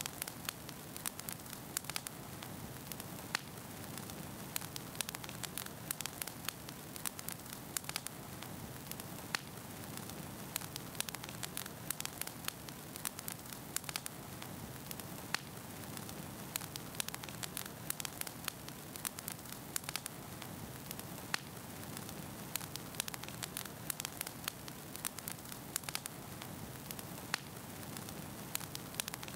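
Steady low hiss with many irregular crackles and pops throughout.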